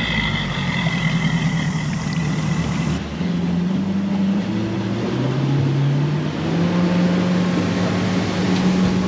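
A 200 hp outboard motor running just after starting, its hum shifting in steps as it is put into gear and throttled ahead.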